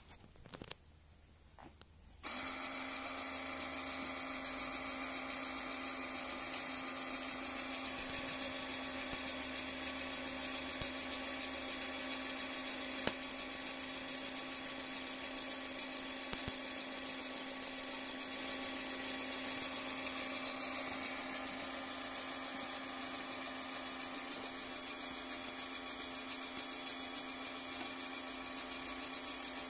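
Steady electrical whine with a low hum from a LEGO Power Functions smoke-generator circuit, switched on suddenly about two seconds in, with a faint click or two.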